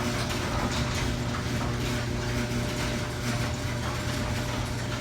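Raynor 270-7 garage door opener running steadily with a constant motor hum, lifting a freshly lubricated sectional garage door that runs smoothly. The opener is on the loud side, which the owner traces to its case vibrating.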